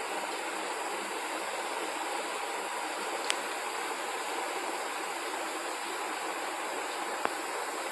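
Steady whooshing background noise, with two short sharp clicks, about three seconds in and near the end, from a Labrador eating dry kibble out of a hand.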